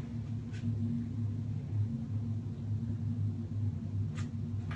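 Cat purring close by: a steady low rumble that swells and eases unevenly, while the cat is being stroked.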